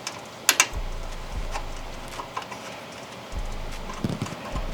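Light clicks and knocks of metal PC case parts being handled and fitted, with one sharp click about half a second in.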